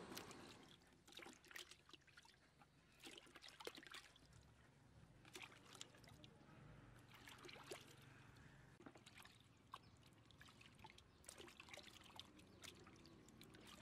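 Faint water splashing and dribbling as fruit is rubbed and turned by hand in a bucket of water, in short irregular splashes.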